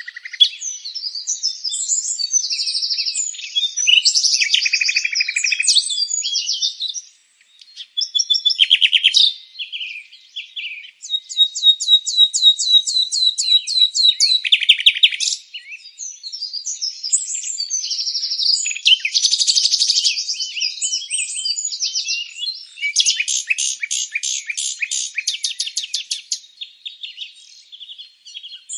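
Several songbirds singing and chirping at once, a dense chorus of short high calls and rapid trills, with a brief lull about seven seconds in.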